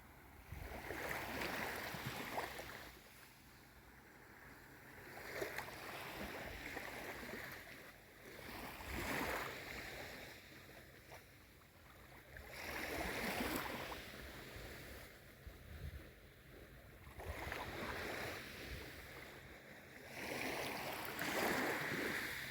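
Small waves of a calm sea washing in, each swell rising and falling away about every four seconds.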